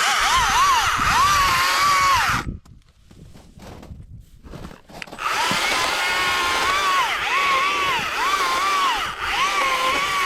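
Electric chainsaw cutting up a fallen tree: its motor whine dips in pitch again and again as the chain bites into the wood. It stops about two and a half seconds in, then starts again and keeps cutting.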